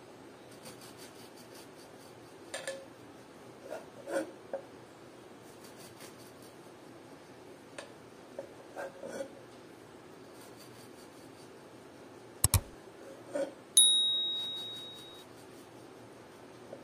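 Dishes and utensils being handled: scattered light knocks and clicks, two sharp clicks about twelve seconds in, then one high ringing ting that fades over about a second and a half.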